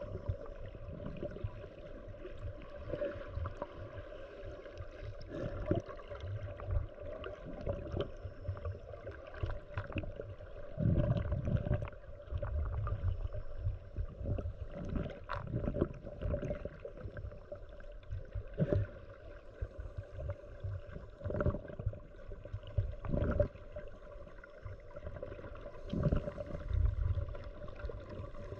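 Muffled underwater noise picked up through a waterproof camera housing: a low churning rumble of moving water that swells and fades, with many scattered clicks and knocks.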